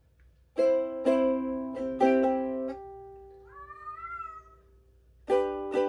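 Ukulele chords strummed a few times, the last chord ringing on, then a cat meows once in a long rising-then-falling call. The strumming starts again near the end.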